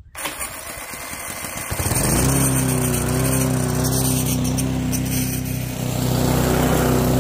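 Petrol lawn mower engine turned over by an added battery-powered electric starter for under two seconds, then catching, rising in pitch and settling into a steady run. The mower is then pushed across the grass with the engine running.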